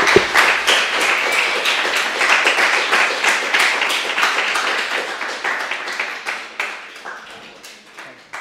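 Audience applauding, a dense sustained clapping that thins out and fades away near the end.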